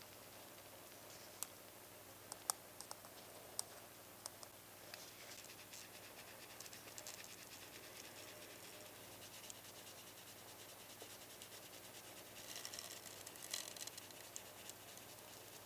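Quiet handling noise: a few light clicks from a small metal mesh tea-infuser ball being worked, then a soft shaking rustle near the end as fine red powder is sifted through its mesh onto a plastic model part.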